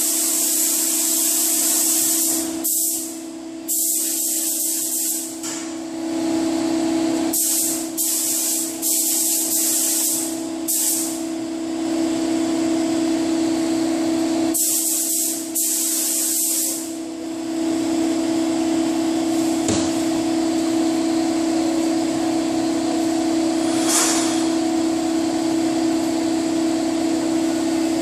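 SATA paint spray gun hissing in on-and-off bursts, from under a second to a few seconds long, as the trigger is pulled and released; the bursts stop a little past halfway. A steady low hum runs underneath.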